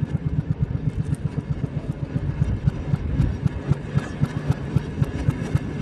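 Small engine of a narrow-gauge railroad speeder running with a rapid, even putter of about eight beats a second.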